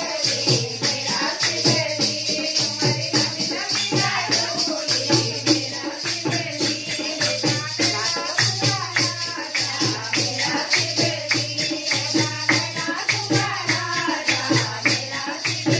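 A group of women singing a Hindi devotional bhajan to Shiva, accompanied by hand-clapping and jingling metal percussion keeping a steady beat.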